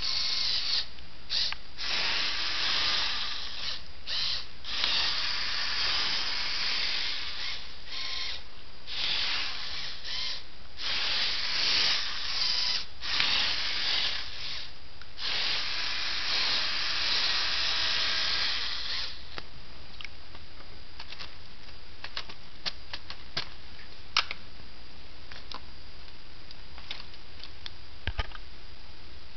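Lego model truck's electric motors and plastic gear train whirring in runs with short stops as it drives. The whirring stops about two-thirds of the way through, leaving a few faint clicks.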